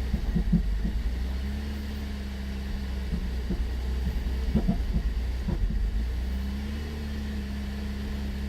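2010 Cadillac SRX V6 engine running after a cold start with a steady low rumble and irregular knocking, bunched near the start and around the middle. The knock comes on nearly every cold start; the dealer put it down to sticky valves, and the car later needed a new high-pressure fuel pump.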